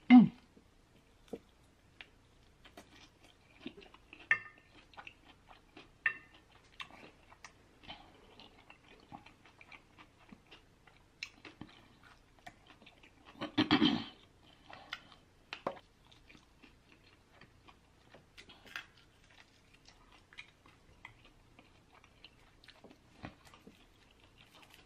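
Chewing and crunching of crispy fried chicken wings, with scattered small bites and mouth clicks; a louder burst of sound about halfway through.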